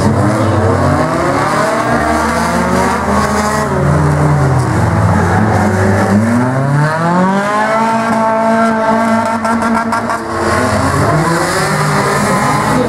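Several small racing cars' engines revving hard and easing off as the cars race in a pack. Their pitch rises and falls over and over, with one long climbing rev near the middle.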